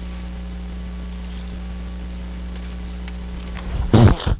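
Steady electrical hum from a stage sound system, with a faint hiss. About four seconds in there is a short, loud rumbling thump.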